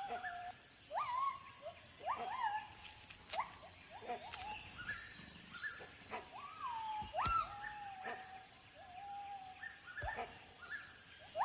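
Gibbons calling: a series of whooping notes, each sweeping sharply up in pitch and then levelling off or sliding down, about one a second. A few notes in the middle are drawn out longer. These are the loud vocal displays gibbons use to defend their territory.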